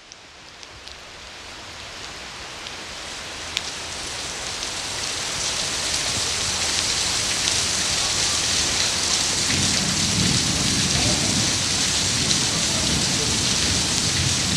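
Heavy rain pouring down, fading up from silence and building over several seconds to a steady downpour, with a few sharp drips near the start. A low rumble joins about ten seconds in.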